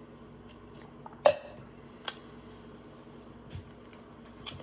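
A metal tumbler set down on a hard surface: a loud clunk about a second in, then a sharp click, and a couple of faint knocks near the end.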